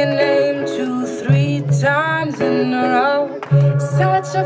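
Recorded pop song with a sung melody over a pulsing bass line, played over loudspeakers for a stage dance.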